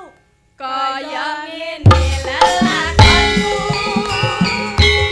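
Javanese gamelan music starting up. After a short gap, a solo melodic line wavers in pitch. About two seconds in, kendang drum strokes and the full ensemble join in a steady rhythm.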